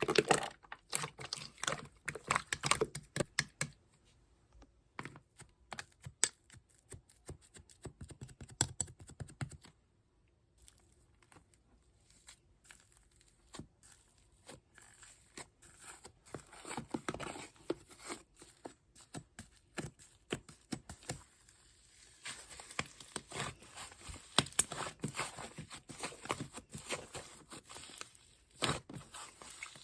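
Slime being handled by hand: a run of sticky clicks, pops and crackles, easing off briefly about four seconds and ten seconds in.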